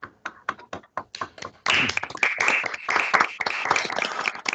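Several people clapping over a video call. It starts as scattered separate claps and thickens into dense, steady applause about a second and a half in.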